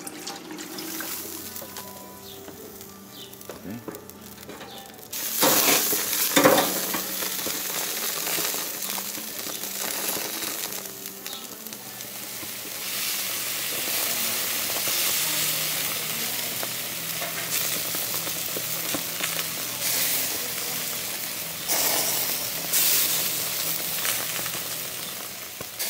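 Whole trout sizzling in a wire grilling basket on a barbecue grill. After a quieter start, the sizzling comes in suddenly about five seconds in and stays steady, with a few sharp pops and crackles.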